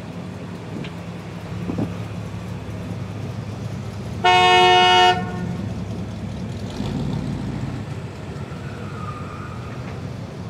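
A car horn sounds once, a short blast of several tones together lasting under a second, over a steady low rumble.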